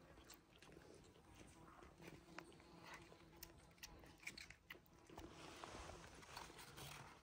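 Faint, irregular clicks of a cat chewing wet pouch food from a dish.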